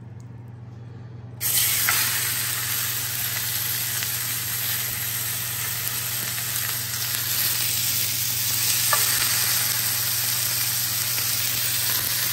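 Lamb shoulder blade chop searing in a hot cast iron skillet greased with tallow: the sizzle starts suddenly about a second and a half in as the meat meets the fat, then runs on steadily. A low steady hum sits underneath.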